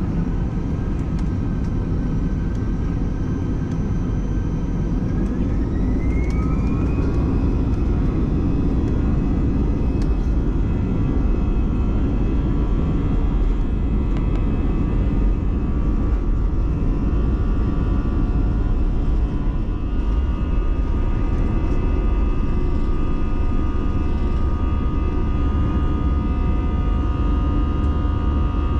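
Airbus A320's jet engines spooling up to takeoff thrust, with a whine rising in pitch about six seconds in, then holding steady over a loud deep rumble through the takeoff roll and liftoff, heard from inside the cabin over the wing.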